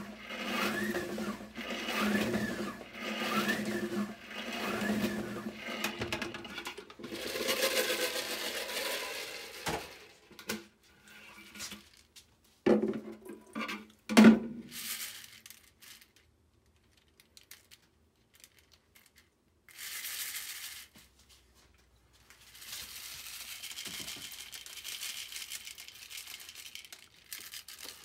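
A hand-cranked plastic salad spinner whirring as it spins a basket of small plastic keyboard switch parts, pulsing about once a second with each push of the crank, to spin off the rinse water. The spinner then stops, and its lid and basket clack as they come apart. Near the end, the loose switch parts rattle as they are shaken and tipped from one plastic basket into another.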